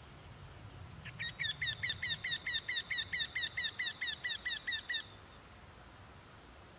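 Eurasian wryneck singing: a run of about nineteen short, identical notes, roughly five a second, starting about a second in and stopping at about five seconds.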